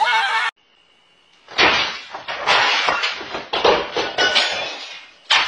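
Cat's claws scraping and scrabbling on a tabletop as it slides slowly off the edge, in irregular noisy bursts for a few seconds. A single sharp knock comes near the end.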